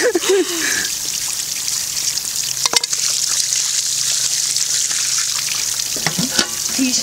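Water pouring steadily from a hose onto stone, a constant hiss, with one sharp click about three seconds in.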